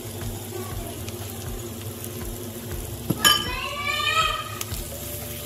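Chopped vegetables sizzling in butter in a steel pot while flour is stirred in with a spoon, with a sharp clink of the spoon against the pot a little after three seconds in.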